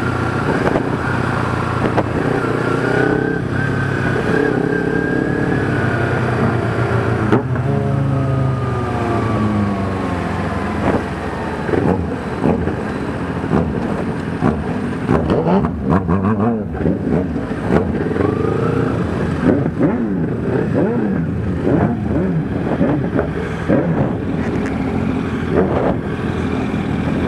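Kawasaki Ninja 250R parallel-twin engine running on the road, heard from a microphone inside the rider's helmet with a steady rush of wind. Its pitch holds steady at first, falls away over a few seconds about eight seconds in, then rises and falls repeatedly with the throttle.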